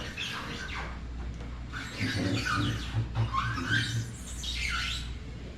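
A metal work table squealing in several short, bending squeaks as it is moved into position, with a low rhythmic pulsing during the middle stretch.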